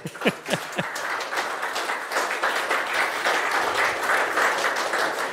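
Audience applauding, the clapping swelling within the first second and then holding steady.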